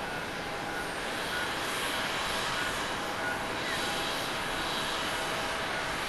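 Jet engines of a Boeing 767-300ER airliner running as it moves along the runway: a steady rushing noise with a thin, faint whine in it.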